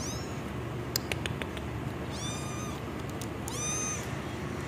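Small kitten meowing: a short high cry right at the start, then two longer high-pitched meows about two and three and a half seconds in. A few faint clicks come about a second in.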